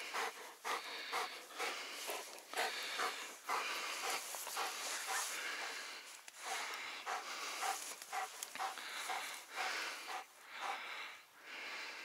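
German wirehaired pointer (drahthaar) panting after a retrieve, in quick breaths two to three a second.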